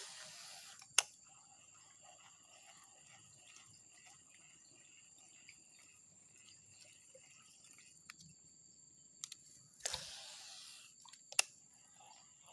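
Steady high-pitched drone of insects, with two short rushing swishes, each followed about a second later by a single sharp click.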